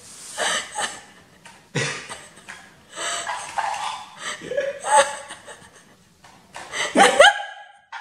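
Bursts of laughter and chuckling, partly played back by a plush talking parrot toy that repeats what it hears, ending in a sudden cut-off about seven seconds in.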